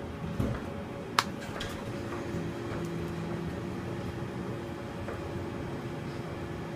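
Steady machine hum of the kind café equipment gives off, with a couple of level tones through it, and one sharp click about a second in.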